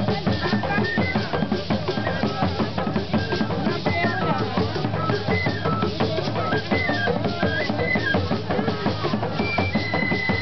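Traditional Dagomba drum ensemble playing fast, dense Bamaya dance rhythms, with a high melody of held notes stepping between pitches above the drums.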